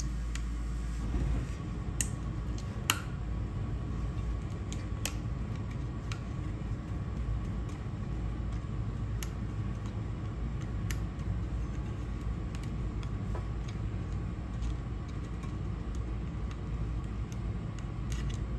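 Scattered light clicks and small knocks of hand work on a UTV's engine parts and clips, over a steady low rumble.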